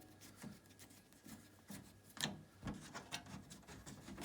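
Screwdriver backing out the screws on the back panel of a computer case: faint, irregular small clicks and scraping of metal on metal, one slightly louder click about two seconds in.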